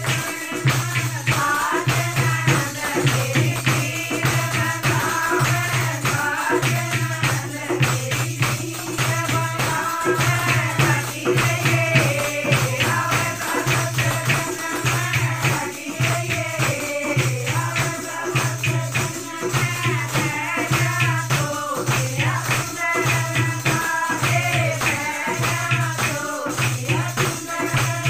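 A group of women singing together, with hand-clapping and a steady percussion beat keeping time.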